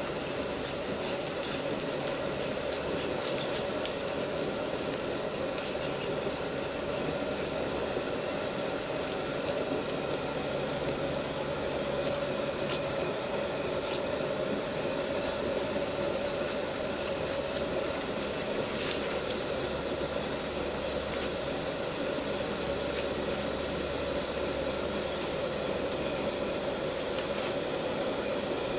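Steady, unchanging mechanical hum and hiss, with no let-up or change in pitch, like a vehicle or motor running continuously.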